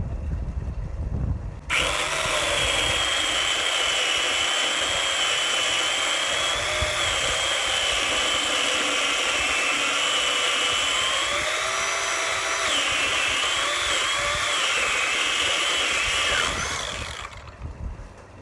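Ryobi OPP1820 18-volt cordless pole saw's electric motor and 8-inch chain cutting through a 4x4 timber post. It starts about two seconds in, its whine wavering in pitch as the chain bites, and winds down near the end.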